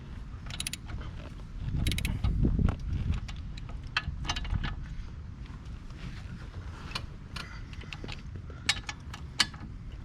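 Ratchet wrench clicking in irregular strokes as the quad's swing-arm bolts are tightened down, with metallic clicks of the tool on the bolts and a low rumble of handling noise about two seconds in.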